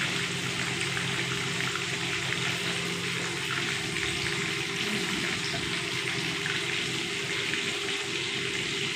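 Whole fish deep-frying in a pan of hot oil: a steady, even sizzle, with a faint low hum under it for about the first half.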